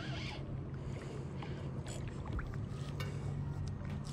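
Spinning reel being cranked to bring in line, light ticks over lapping water, with a steady low hum underneath.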